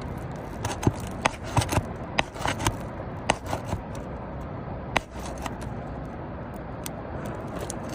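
Sharp clicks and scrapes of a hand tool working against old 3-tab asphalt shingles to pull out a nail, thinning out after about five seconds into a steady low rumble.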